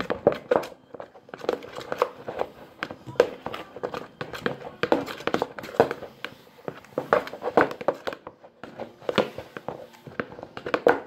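A spoon stirring wet shredded paper napkins and shampoo in a bowl, with irregular squelches and clicks as the mixture is worked up into a foam.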